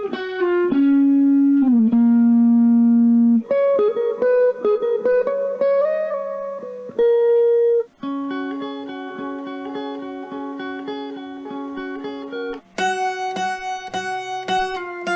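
Guitar-led background music. Slow held notes glide between pitches at first, then a quicker picked pattern of repeated notes starts about halfway through and turns brighter near the end.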